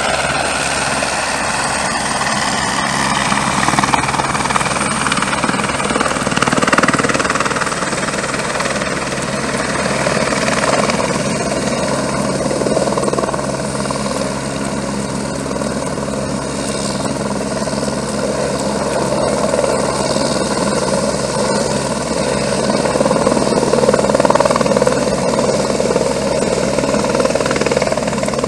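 Firefighting helicopter's rotor and turbine running steadily as it flies and hovers low over a river to fill its water bucket.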